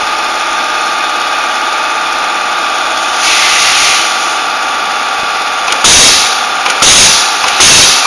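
Pneumatic wire-stripping and terminal-crimping machine running with a steady hum, and a short hiss of compressed air about three seconds in. From about six seconds, loud thumps come roughly once a second.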